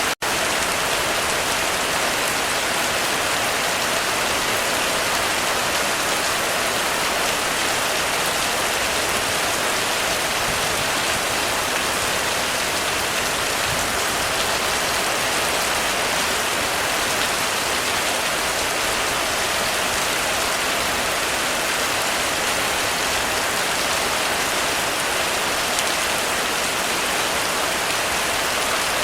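Heavy rain falling steadily on a roof, a dense, even hiss of drops with no thunder.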